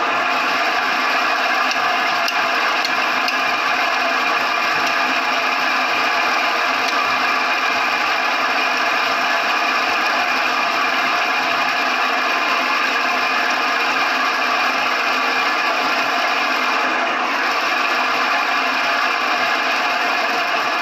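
Homemade banana-stalk grinder, built on a band saw frame, running steadily: its electric motor drives the cutter shaft through a V-belt and pulley, making a loud, even mechanical whir.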